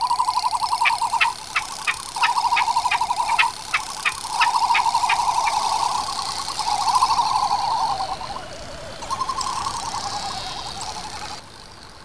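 Male frigatebirds giving their courtship display call with their red throat pouches inflated: a rapid warbling trill in about five phrases, each a second or two long. A quick run of clicks, about four a second, sounds over the first half, and the calls fade out shortly before the end.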